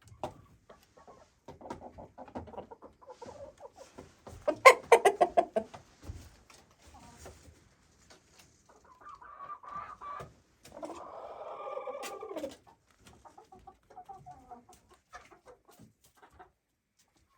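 Chickens clucking and calling, with a louder run of rapid clucks about five seconds in and a longer drawn-out call around eleven seconds.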